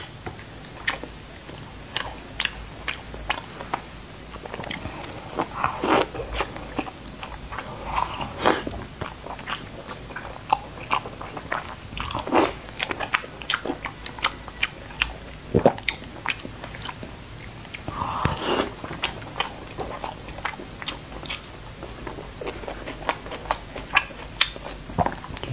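Close-miked eating sounds of a person chewing braised pork belly and lettuce: an irregular run of sharp mouth clicks and smacks, with a few louder ones spread through.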